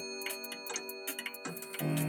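Old mechanical clocks ticking, several a second and out of step with one another, over soft background music of held notes; a new lower note comes in near the end.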